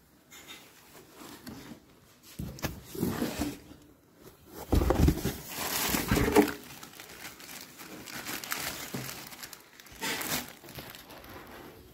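Clear plastic packaging bags crinkling and rustling as hands handle bagged accessories and wiring from a cardboard box. The rustling comes in irregular bursts, loudest a little before the middle, with another burst near the end.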